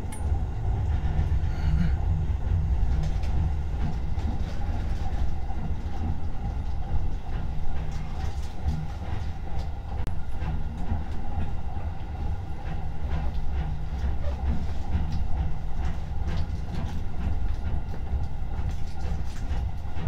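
Electric commuter train running along the line, heard from inside the front car: a steady low rumble with scattered clicks of the wheels on the rails.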